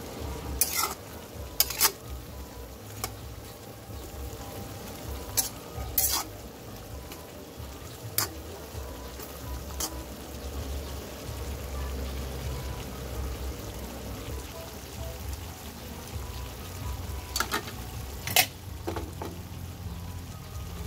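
A metal spoon stirring pork hock adobo in a metal pan, with sharp clinks of spoon on pan every second or two near the start, a couple more in the middle and two near the end, over the simmer of the thickening sauce.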